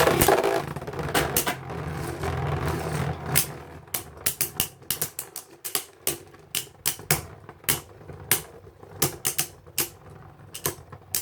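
Two Beyblade spinning tops, the 3D-printed Galahad Beyond with its rubber-ringed disc and Tempest Dragon, whirring in a plastic stadium and clashing, a rapid run of sharp, irregular clacks. The whirring fades after about four seconds, leaving scattered hits. The hits wear down Tempest Dragon's burst clicks.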